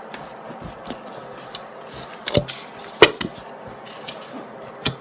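Handling noise: scattered taps and knocks of things being moved on a table, with a couple of sharper knocks a little past the middle, the loudest about three seconds in.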